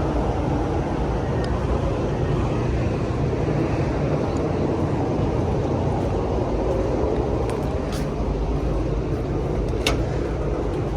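Steady low rumbling background noise, with a couple of sharp light clicks late on.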